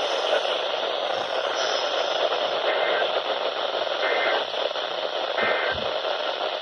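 Steady static hiss from a NOAA Weather Radio receiver. Three short, faint data chirps sound about a second and a half apart in the middle, matching the Emergency Alert System end-of-message bursts that close a broadcast message.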